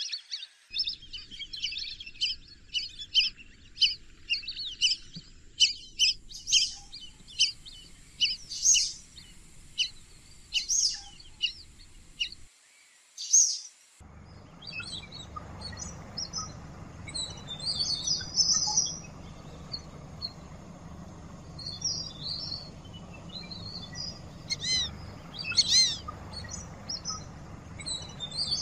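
Lesser whistling ducks calling: a quick run of high, thin whistled notes. About halfway through the recording changes to one with a steady low background and sparser, scattered whistles.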